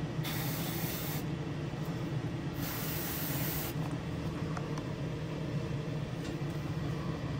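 Airbrush spraying shading-gray paint through a stencil onto a lure in two short hisses of about a second each. A steady low hum from the spray booth's exhaust fan runs underneath.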